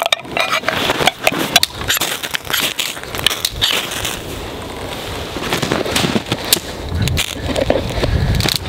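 Irregular sharp crackles and clicks throughout, from camp gear being handled and a small fire of split sticks being lit.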